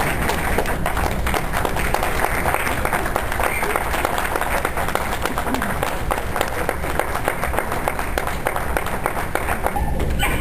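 Spectator crowd applauding steadily: many hands clapping at once, with voices mixed in.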